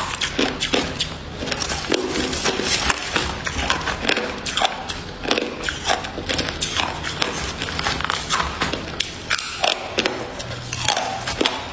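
Hard white ice cubes being bitten and chewed, a rapid, continuous run of sharp crunching cracks.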